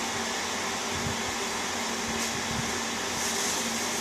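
Newly installed Daikin air conditioner running after being switched on: a steady rush of fan air with a faint low hum.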